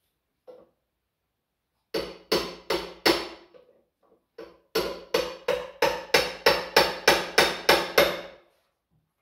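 Hammer blows on the metal of a Ford 7610 tractor, struck to knock a stuck part loose: four blows, a short pause, then a run of about a dozen at roughly three a second, each ringing briefly.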